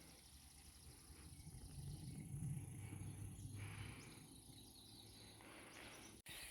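Faint insects trilling, high and steady, under a low rumble that swells in the middle and fades again.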